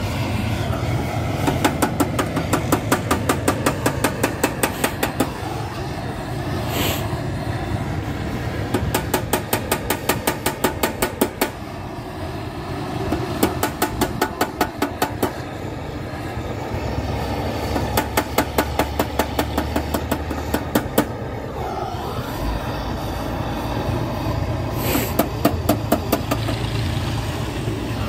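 Rapid metal-on-metal tapping from a hand tool working on a radiator, about five taps a second, in bursts of a few seconds with pauses between. A steady low hum runs underneath.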